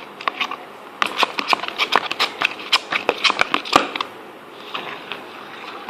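Freshly mixed jelly slime of clear glue and liquid soap being squished and worked, making a quick run of wet clicks and pops that thins out after about four seconds.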